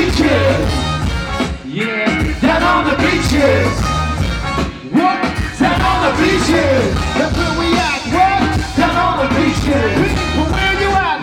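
Live band playing loud ska-tinged dance music, with a heavy bass and a melody line over it.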